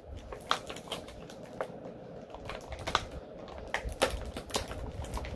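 Plastic toy packaging being handled while accessories are taken out: irregular sharp clicks, about two a second.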